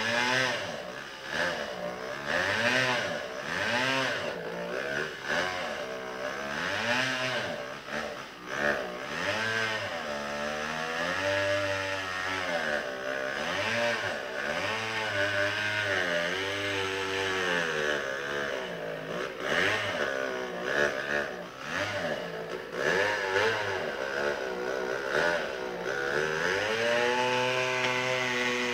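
An engine revving up and down again and again, every second or two, while working.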